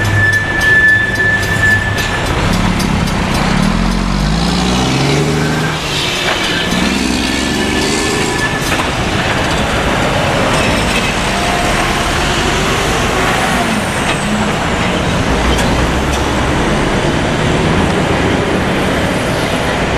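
The crossing's Safetran mechanical bell rings for the first two seconds or so, then stops as the signals go dark. Heavy diesel trucks, a semi and a dump truck, then pull away across the tracks from a stop, their engines rising in pitch as they accelerate, followed by passing road traffic.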